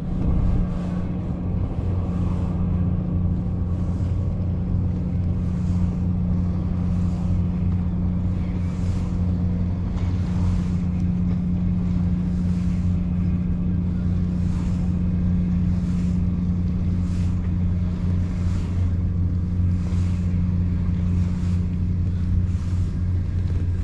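Steady low engine drone, holding the same two deep tones without a break.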